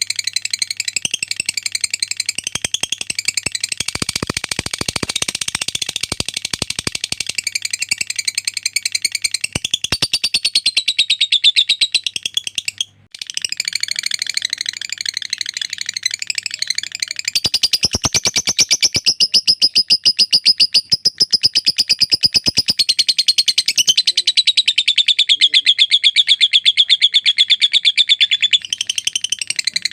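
Lovebird ngekek: a long, rapid, high-pitched chattering trill with only a brief break about 13 seconds in.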